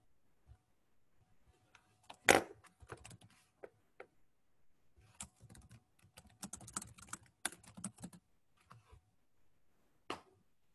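Quiet typing on a computer keyboard: two runs of quick, uneven key clicks, with one sharper click about two seconds in and a last single click near the end.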